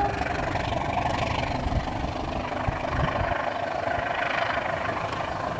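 Steady running noise of a passenger train's coaches rolling on the rails as the tail of the train moves away around a curve.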